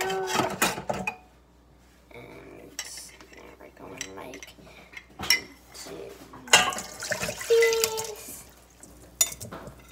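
A metal spoon clinking and knocking against a ceramic mug as it is handled, with several sharp clinks, the loudest about six and a half seconds in.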